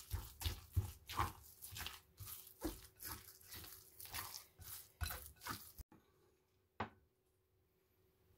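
Hiryozu mixture of mashed firm tofu and grated mountain yam being worked in a suribachi mortar, in wet squishing strokes about three a second. The strokes stop abruptly, and one sharp click follows about a second later.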